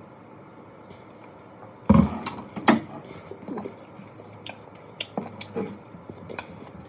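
Eating sounds at a meal of rice and chicken: a loud knock about two seconds in, then scattered sharp clicks and taps.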